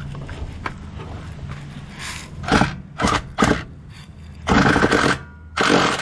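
Socket wrench and wobble extensions being worked on engine bolts: a run of short metallic rattling and scraping bursts, the longest a little after halfway, over a low steady hum.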